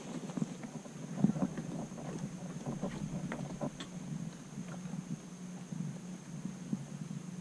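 Wind on the microphone and water lapping at a small boat's hull over a steady low hum, with irregular light knocks and clicks during the first four seconds.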